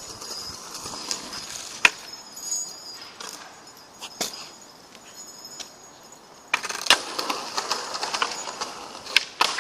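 Outdoor sounds without speech: scattered sharp clicks and cracks over faint high chirping, and about six and a half seconds in a louder rustling begins.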